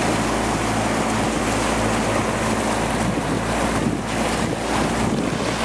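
Motorboat under way: a steady low engine drone under the rush of water along the hull, with wind buffeting the microphone in gusts.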